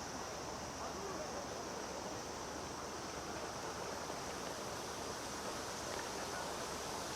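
Cicadas droning steadily in a high, unbroken band over a wash of background noise.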